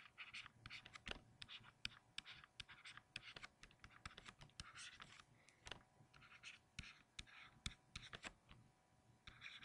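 Stylus tapping and scratching on a tablet screen as equations are handwritten: faint, irregular clicks mixed with short scratchy pen strokes.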